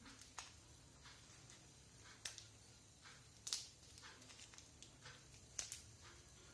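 Faint handling of stiff toy packaging being worked open: about four short sharp crinkles and clicks over near silence, the loudest a little past the middle.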